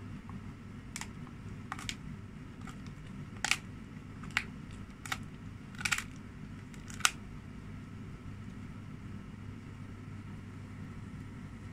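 A dog gnawing a dried lamb ear with fur, giving a string of sharp crunches and cracks, about eight of them over the first seven seconds, then stopping. A steady low hum runs underneath.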